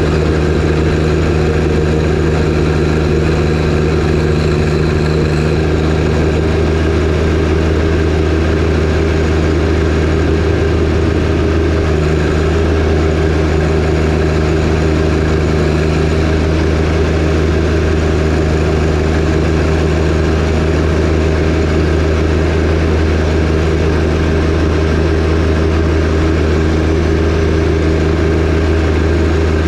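John Deere 1025R compact tractor's three-cylinder diesel engine running steadily at a constant speed, powering a 47-inch snowblower.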